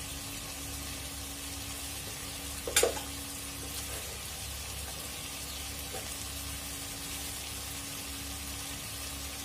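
Steady sizzling from food frying in a pressure cooker on a gas stove, under a faint steady hum. About three seconds in, one sharp knock is the loudest sound.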